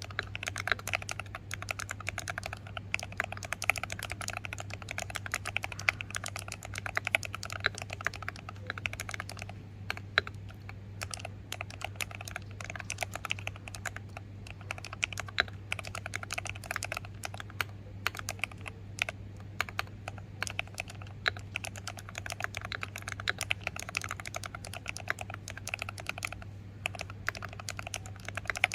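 Fast, continuous typing on an Akko 3098B mechanical keyboard fitted with KSA-profile double-layer pudding keycaps and lubed Akko switches, foam- and tape-modded, giving dense, uneven key clacks over a steady low hum.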